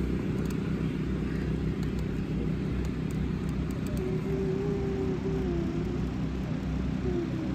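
Steady low rumble of a car driving slowly, engine and road noise.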